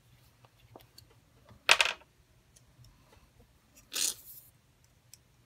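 Two brief handling noises of scrapbooking supplies, a paper bow being picked up and liquid glue applied: the first and louder a little under two seconds in, the second about two seconds later. Faint small ticks are heard between them.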